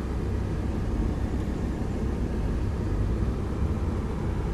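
A car driving along a city street: a steady, low rumble of engine and tyre noise, heard from the moving car.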